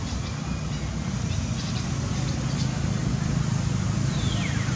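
Steady low rumbling background noise outdoors, with a short high call gliding down in pitch about four seconds in.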